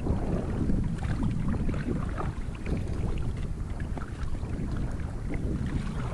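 Wind rumbling on the microphone over the splash and lap of water around an inflatable kayak being paddled.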